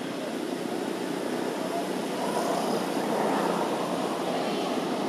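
Steady outdoor background noise: an even hiss and rumble with no clear pitch, swelling slightly about halfway through and easing off again.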